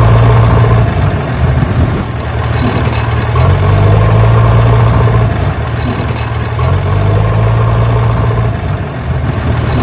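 Tractor engine running steadily with a low hum, its note swelling and easing about three times.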